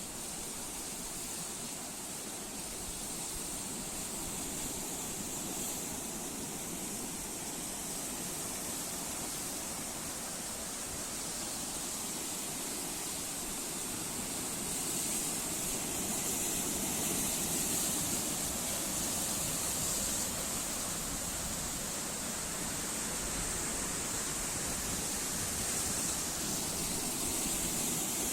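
Sea surf washing in: a steady rush of breaking waves that swells a little louder about halfway through.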